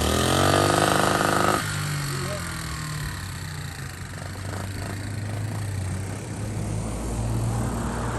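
49cc mini four-wheeler engine revved up, its pitch rising for about a second and a half before dropping off suddenly, then running on at low revs.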